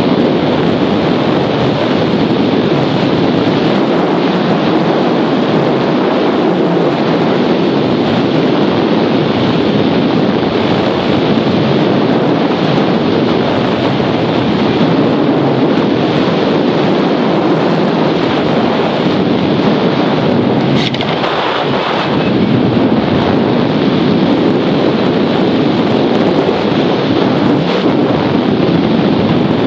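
Wind noise from the airflow of a hang glider in flight rushing over the camera's microphone: a loud, steady rush.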